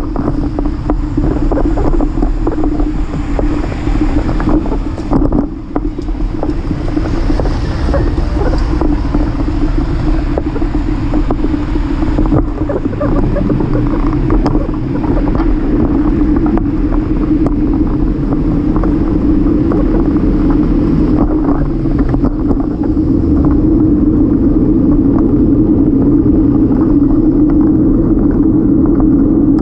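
Wind buffeting the microphone of a bike-mounted camera together with tyre and road rumble from a moving folding bike: a steady loud rumble with a low hum and small knocks over bumps, growing a little louder about three quarters of the way through.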